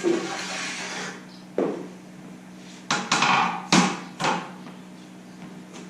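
A short hiss, then several sharp knocks and taps, the loudest cluster about three to four seconds in, over a steady low hum.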